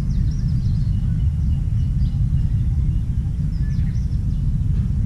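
Steady low outdoor rumble, with faint short high chirps of birds now and then.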